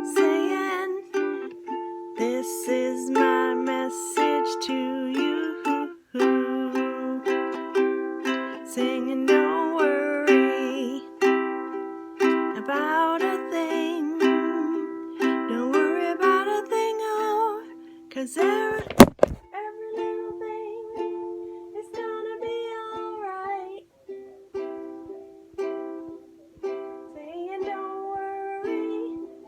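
Ukulele strumming chords, with a gliding melody line above them in places. A single sharp click, the loudest sound, comes about two-thirds of the way through.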